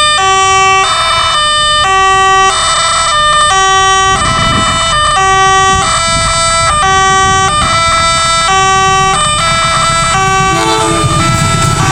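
Electronic warning siren of a KAB-model railway level crossing sounding continuously, a hoarse two-tone pattern repeating about every second and a half, signalling an approaching train. A low rumble rises beneath it about four seconds in and again near the end.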